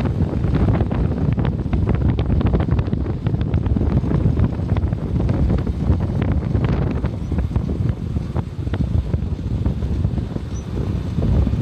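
Wind buffeting the microphone of a moving vehicle over road rumble, with scattered clicks and knocks, easing a little in the second half.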